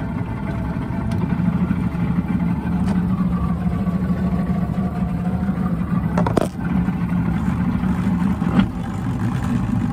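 Outboard motor of a Boston Whaler Outrage running steadily under way, a continuous low drone. A brief sharp knock about six and a half seconds in.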